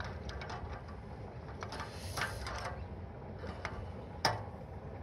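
Scattered metallic clicks of a Yamaha snowblower's carburetor throttle linkage being worked by hand; the throttle is gummed and sticking, which holds the idle at high revs. A short hiss comes about two seconds in, and a sharper click near the end.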